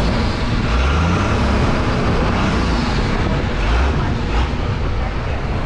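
Motorboat engine running steadily and loudly, with a deep rumble under a broad hiss.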